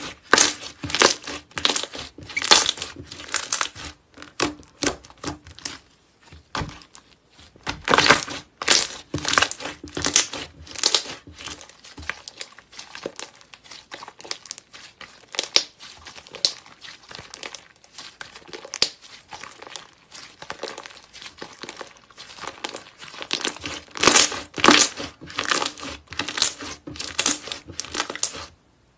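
Thick white slime squeezed, kneaded and stretched by hand, giving a dense, irregular run of small sticky crackles and pops that come in clusters with short lulls.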